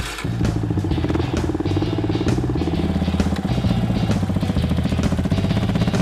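Yamaha Scorpio's single-cylinder four-stroke engine catching on the electric starter right at the start, then running at idle with a quick, even exhaust beat.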